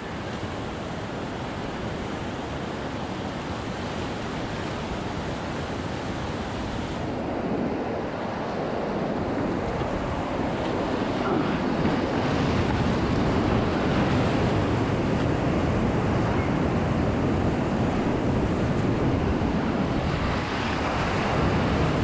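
Rushing whitewater of a river rapid, growing louder over the first several seconds as the raft runs into it. Waves then break and splash over the raft's bow, with wind buffeting the microphone.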